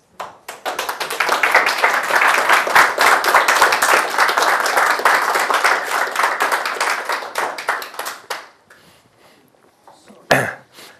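Audience applauding, a dense clatter of many hands that starts at once and dies away after about eight seconds. A single knock near the end.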